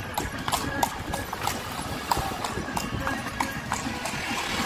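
Carriage horse's hooves clip-clopping on a paved street, a steady run of sharp clicks, about three a second.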